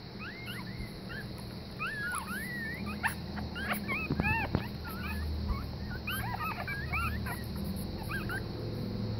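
Week-old German Pinscher puppies squeaking and whimpering: many short, high, rising-and-falling squeaks that overlap, thickest about three to five seconds in.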